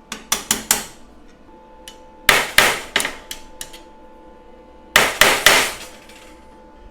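A hammer striking steel in three quick bursts of about four blows each, knocking a laser-cut steel center rib into position on the floor sheet before tack welding.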